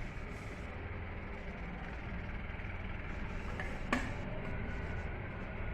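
A single sharp click about four seconds in, the power switch of a Philips Maestro valve radio being turned on, over a steady low hum and hiss.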